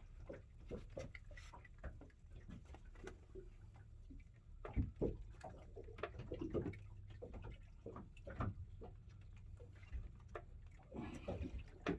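Faint, irregular taps, clicks and rustles of a small tailor (fish) being handled after landing, over a steady low rumble. The firmest tap comes about five seconds in.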